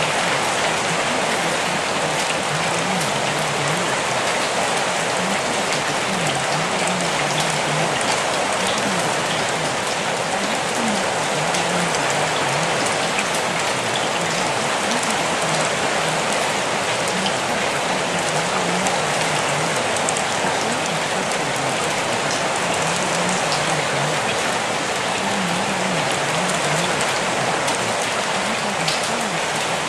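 Steady rain sound, an even, unbroken hiss, with the faint mumble of a voice buried low underneath: the hidden affirmations of a subliminal track.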